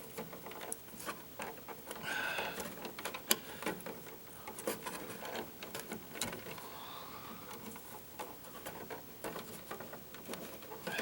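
Faint, irregular clicks and scrapes of wire being handled: a twisted bare copper ground wire being turned back to untwist and straighten it in a wall junction box.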